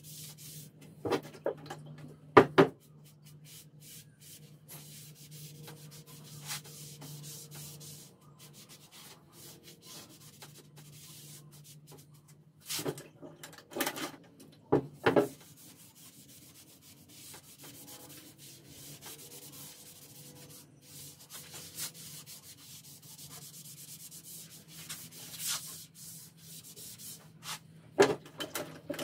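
Hand sanding of a pine tabletop and its edge with sandpaper: soft scratchy rubbing strokes, broken by a few sharp knocks and taps, the loudest about two and a half seconds in. A low steady hum sits underneath.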